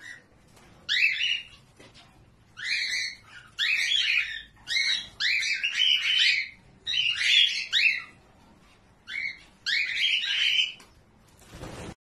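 Pet cockatiels calling: a run of about ten loud, high, repeated calls, each under a second long and sliding in pitch, with short gaps between them.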